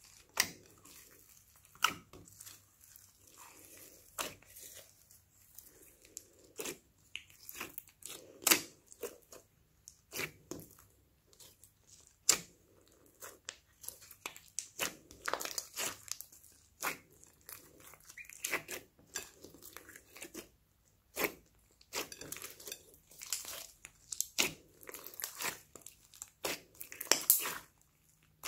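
Hands squishing and folding glossy slime mixed with foam beads and soft clay, making irregular wet clicks, crackles and pops that come thicker in the second half.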